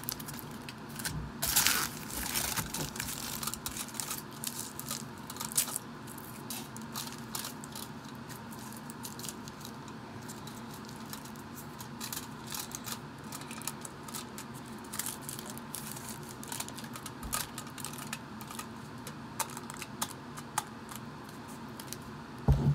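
Aluminium foil being handled and crinkled close to the microphone, with many small crackles and clicks, and a thump near the end.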